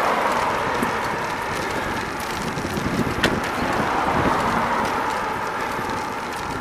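Wind rushing over the microphone and road noise from a moving bicycle in street traffic, a steady rush with a light click about three seconds in.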